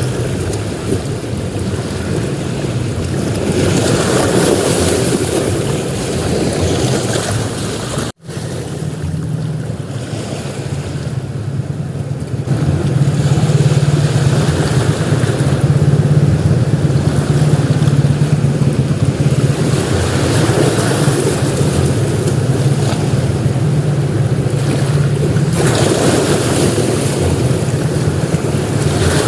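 Ocean surf breaking and washing onto a beach, swelling and easing in waves, with wind noise on the microphone. After a brief sudden dropout about eight seconds in, a steady low hum runs under the surf.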